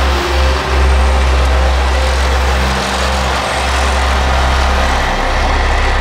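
Asphalt paver's diesel engine and machinery running steadily at close range: a loud, continuous low drone with a broad mechanical clatter above it.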